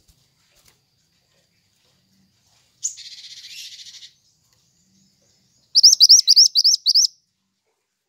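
Caged burung mantenan calling: a harsh, buzzy call lasting about a second, then near the end a rapid run of about eight sharp, rising chirps.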